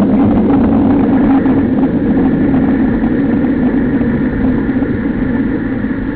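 Motorcycle engine running steadily on the move, with a constant low hum that gradually gets quieter as the bike eases off.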